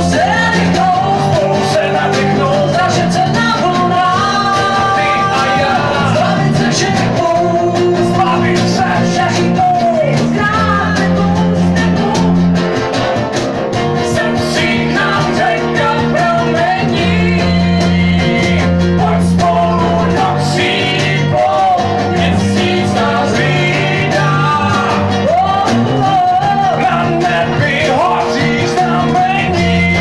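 Live unplugged band: an acoustic guitar playing, with a man and a woman singing into microphones.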